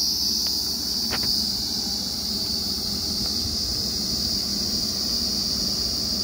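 Loud, steady chirring of crickets over the low, even rumble of a truck-mounted borewell drilling rig's engine running. A faint click comes about half a second in and a brief sound a little after a second.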